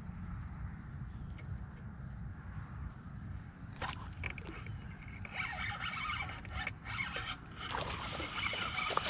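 Spinning fishing reel being cranked, its rapid clicking whir starting about four seconds in and running in stretches as the worm is retrieved, with a low wind rumble on the microphone throughout.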